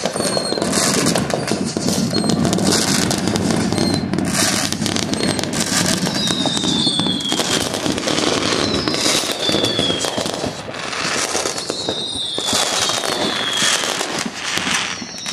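Aerial fireworks going off continuously: dense crackling and popping with repeated hissing bursts. Several whistles, each about a second long and falling in pitch, sound in the second half.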